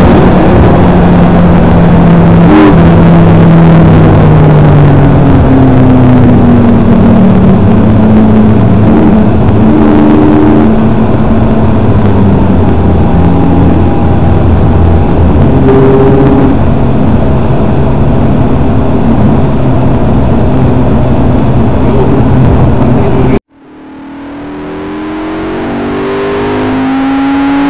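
McLaren MP4-12C's twin-turbo V8 heard from inside the cabin, its engine note falling steadily as the car slows from speed, then running at an even cruise, with a sharp click about three seconds in. Near the end the sound cuts out suddenly and fades back in as the revs rise again.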